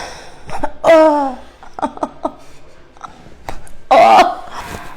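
A person's wordless vocal sounds: a falling groan about a second in and a louder, harsher exclamation near four seconds, with a few short clicks in between.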